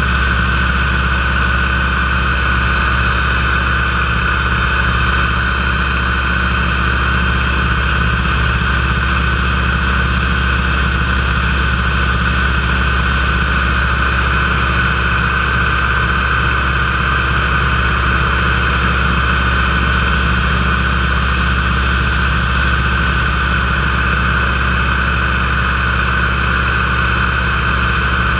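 Nanchang CJ-6A's nine-cylinder radial engine and propeller running steadily in flight, heard from inside the cockpit.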